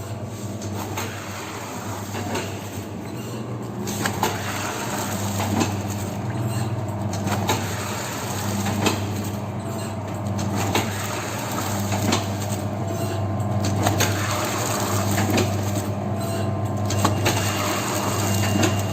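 Cooking-oil packing machine running with a steady motor hum, over which a sharp mechanical click repeats about every one and a half to two seconds.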